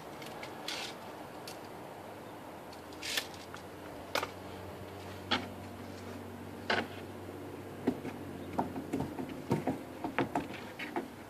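Scattered knocks, taps and scrapes of a large wooden panel being handled and lifted into place against the framing, coming thick and fast in the last few seconds, over a faint steady low hum.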